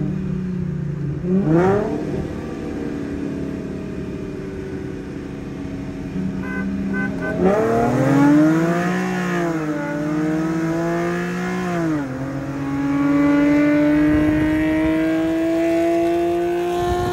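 Infiniti V6 engine under hard acceleration. The revs jump up sharply about a second and a half in and again about seven and a half seconds in. The pitch then climbs under throttle, dropping at upshifts around ten and twelve seconds in, and climbs again until near the end.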